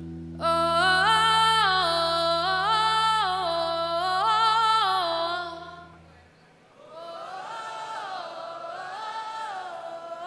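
Call and response: a lead singer sings a short melodic line over a held synth bass note that fades out, then the crowd sings the same line back, quieter and blurred by many voices.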